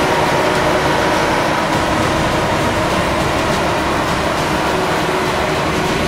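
CLAAS Lexion 440 combine harvester running at work while cutting barley: a steady, loud mechanical drone of engine and threshing machinery.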